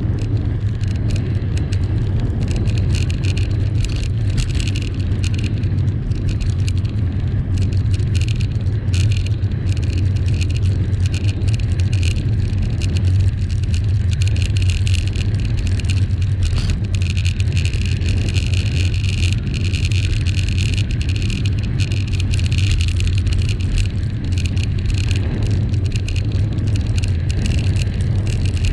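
Bicycle rolling along a tarmac road: a steady low rumble of tyres and wind on the microphone, with many small rattles and clicks from the bike.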